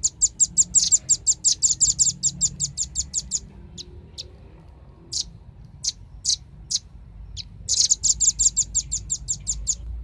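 Velvet-fronted nuthatch calling: a fast chattering run of sharp, high notes, about eight a second, then scattered single notes, then a second fast run near the end.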